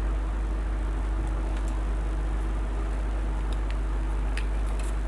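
A steady low electrical hum with a faint higher tone over it, and a few faint light clicks in the second half.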